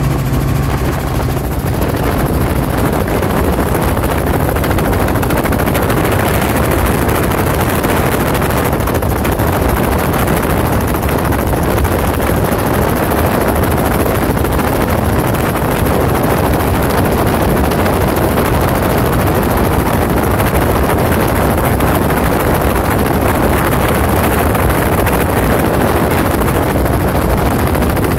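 Steady, loud engine and rotor noise of a Robinson R44 helicopter in cruising flight, heard from inside the cabin.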